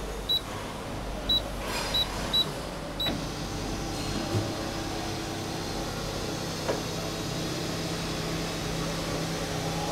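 Five short electronic beeps from a CNC panel saw's control buttons, then a small electric motor starts running steadily as it drives the saw blade's motorised adjustment, its hum changing pitch a few seconds later.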